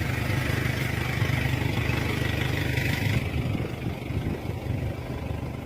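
Motor vehicle engine idling, a steady low hum; a higher hiss over it drops away about three seconds in.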